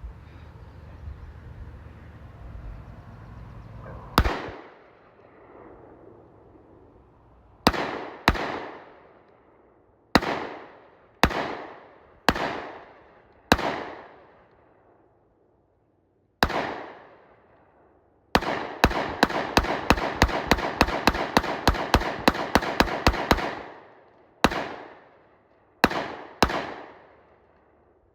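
Glock 20 SF 10mm pistol firing: single shots spaced one to three seconds apart, then a fast string of about four shots a second for some five seconds, then three more shots. Each shot is followed by a long echoing tail.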